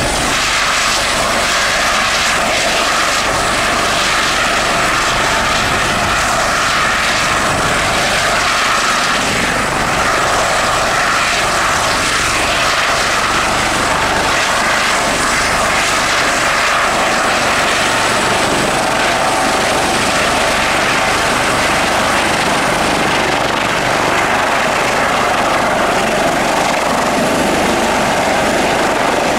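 Air ambulance helicopter, a twin-turbine Eurocopter AS365 Dauphin with a shrouded Fenestron tail rotor, running with its rotors turning, a steady high turbine whine over the rotor noise. It lifts off the grass into a low hover near the end.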